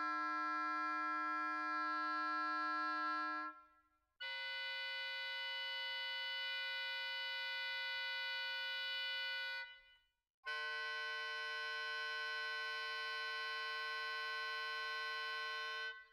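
Recorded oboe and trombone sample tones played back, three long sustained notes at different pitches, each several seconds long, separated by brief silences.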